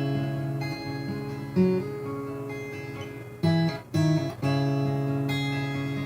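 A Dove-model acoustic guitar being played: chords are left ringing and fading, with a few quick strums a little past the middle.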